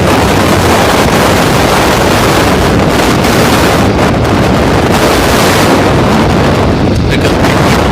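Strong wind buffeting the camera microphone, a loud, steady rumbling noise that covers everything else.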